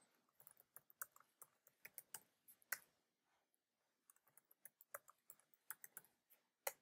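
Faint typing on a computer keyboard: two quick runs of keystrokes with a pause between, each ended by a single louder key press, as a password is typed in and submitted twice.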